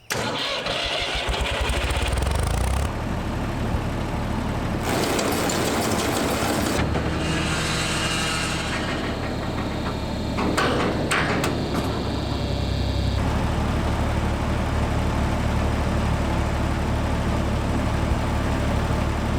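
A tractor engine starts up, its strokes quickening as it catches, then runs steadily. The sound changes abruptly several times from one shot to the next.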